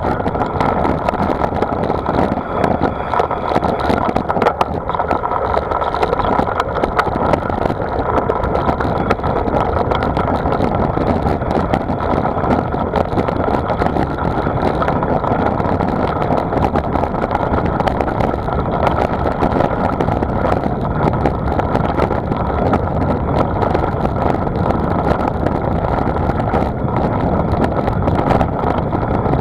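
Steady rush of wind over the microphone of a camera carried on a moving bicycle, mixed with tyre and road rumble.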